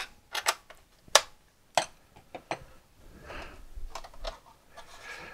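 Sharp clicks and taps of fingers handling and prying at the plastic bottom case of a Convergent Workslate computer, about half a dozen in the first two and a half seconds, the loudest about a second in, then a softer rustle of handling.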